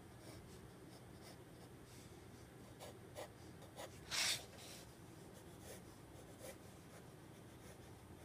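Graphite pencil scratching on drawing paper in a few short, faint strokes, with one longer, louder scratch about four seconds in.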